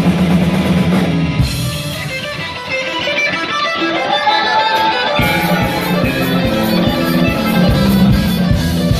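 Heavy metal band playing live: electric guitar, bass and drums. About a second and a half in, the heavy low end and drums drop away, leaving a lone guitar line with wavering bends. Past halfway, the full band comes crashing back in.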